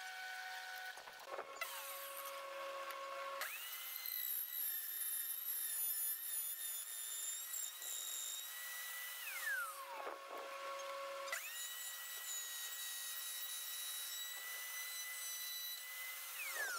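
Router mounted under a router table switching on and spinning up to a steady high whine while a plywood board is fed along the fence, then switching off and winding down in a falling whine. This happens twice, for about six seconds and then about five.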